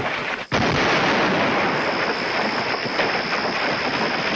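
Stone viaduct collapsing: a long, loud rumbling crash of falling masonry, broken by a short gap about half a second in, with a thin steady high tone running over it.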